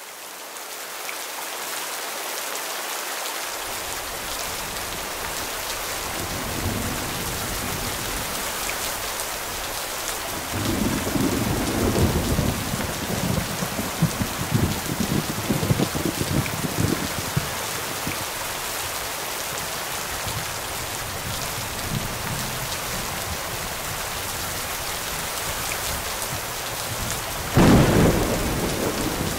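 Steady heavy rain falling, with thunder rolling low in the background from about ten seconds in and a louder sudden clap of thunder near the end.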